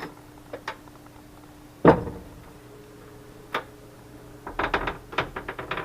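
Custom wooden pantry cabinet doors being opened, their magnetic catches letting go: separate sharp clicks and knocks, the loudest about two seconds in, then a quick run of clicks near the end, over a faint steady hum.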